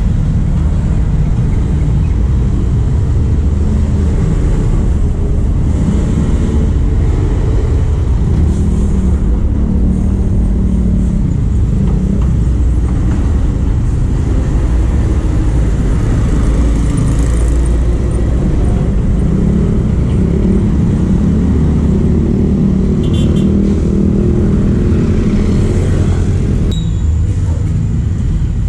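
Street traffic: cars, motorcycles and small vans driving past on a busy road, a loud, steady rumble of engines and tyres.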